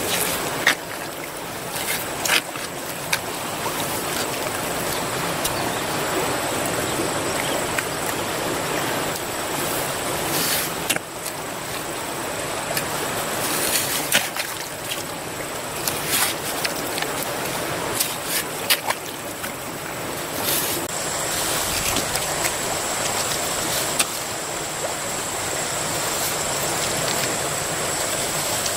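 A small spade chopping and scraping into wet mud, with irregular sharp wet slaps and splashes, over a steady watery hiss.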